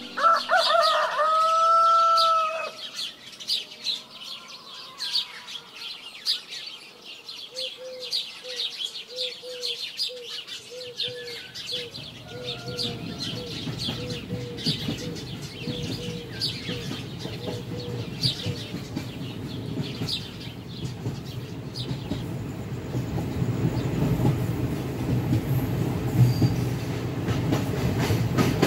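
A rooster crows once at the start over the steady chirping of small birds. About twelve seconds in, the low rumble of a train starts and grows louder.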